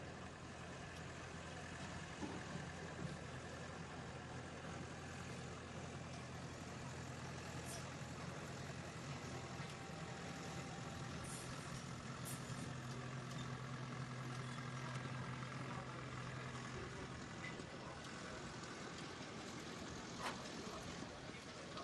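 Steady low engine hum over a faint wash of background noise, with a few faint clicks.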